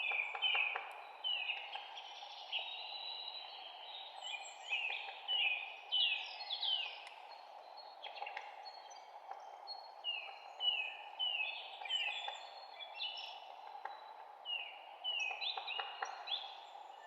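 Small birds chirping, a dense run of quick, high, downward-sliding notes that come in clusters and overlap, over a steady low background hiss.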